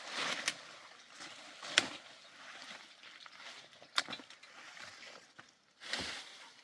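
A few sharp knocks at irregular intervals, the loudest about two and four seconds in, over soft rustling noise that swells at the start and again near the end.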